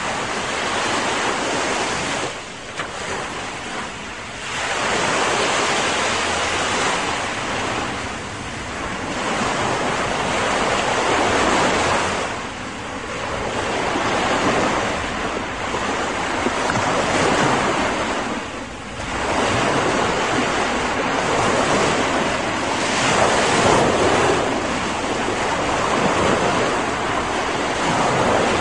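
Ocean surf: waves washing in and drawing back, swelling and fading every few seconds.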